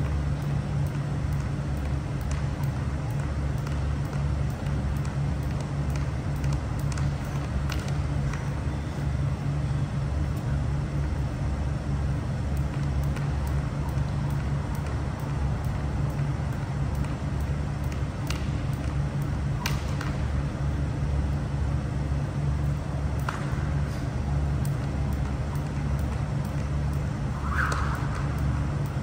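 Steady low hum of large fans, with a few faint, scattered clicks.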